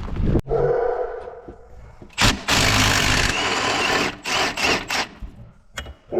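A power tool run in one long burst and then several short bursts, as the wheel and bearing work gets under way on the Nissan, with a sharp knock or click before it.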